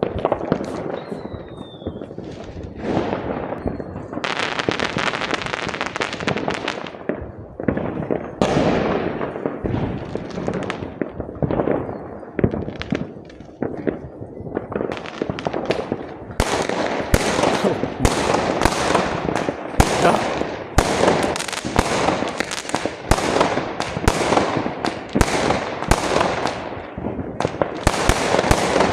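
Many fireworks bursting in the sky, bangs and crackling overlapping without a break. About halfway through, the reports come thicker and sharper, about two a second.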